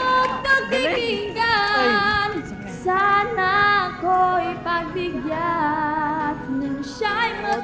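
Music: high voices singing a melody in held notes, in short phrases.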